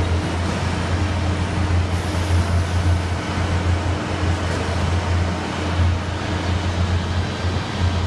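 Steady low rumble of heavy diesel engines: concrete mixer trucks and a truck-mounted concrete pump running while the mixers discharge into the pump.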